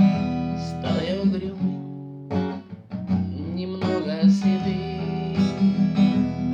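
Strummed acoustic guitar accompanying a singing voice in a Russian romance-style song, with a brief pause in the strumming about two seconds in.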